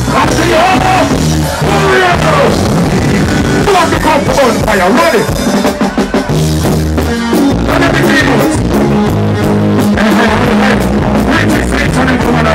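Live reggae band playing loud through a concert sound system: heavy bass and drums with electric guitar and a singer's voice over the top.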